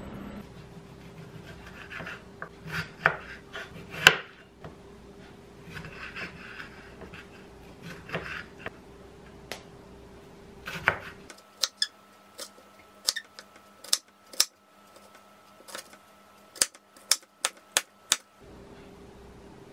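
Chef's knife cutting bell peppers on a wooden cutting board: a few crisp slicing cuts, then a quick series of sharp knocks of the blade on the board as the peppers are diced in the second half.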